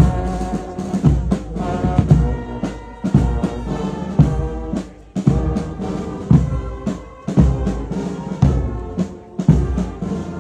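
A brass band with drums playing a slow march: held brass chords over a heavy drum beat about once a second.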